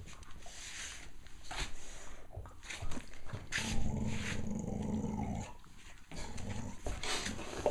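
A dog growling: short breathy bursts, then a long low growl of about two seconds in the middle, then more bursts near the end. It is the kind of growl likened to a Tasmanian devil.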